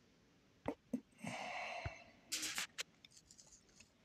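Faint finger taps on a phone touchscreen, two of them about a second in, while the Bible app is being navigated. A person's breath and a short sniff are heard in between.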